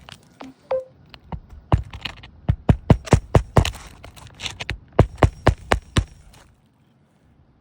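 Hammer driving roofing nails back into asphalt shingles: a rapid run of sharp strikes, about four to five a second with a brief pause midway, that stops about six seconds in.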